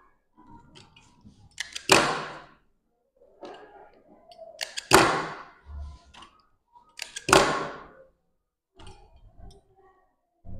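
Cloth being handled and gathered into pleats on a table. There are three loud, sharp swishes about two and a half seconds apart, with faint rustling and small knocks between them.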